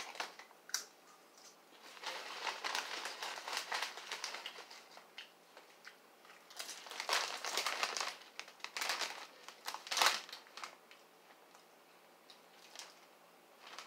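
A plastic potato chip bag crinkling as a hand rummages in it and lifts it, in irregular bursts of rustling, with crisp chips crunched while being eaten.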